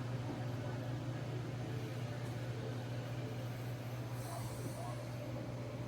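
Steady low hum, with a faint brief hiss about four seconds in.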